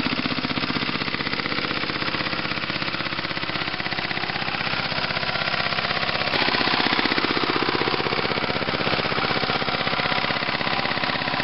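Farymann diesel engine of a Jacobsen Chief garden tractor running steadily under way, with a fast, even pulsing beat. It gets a little louder about six seconds in.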